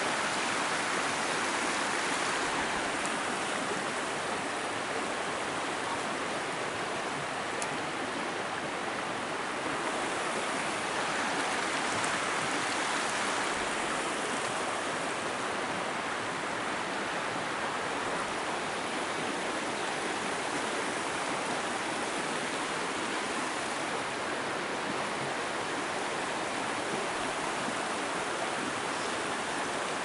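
Steady rushing of flowing water.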